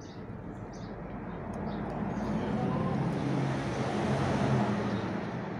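A motor vehicle passing by on the street: its engine and tyre noise swells to a peak about four seconds in, then fades away.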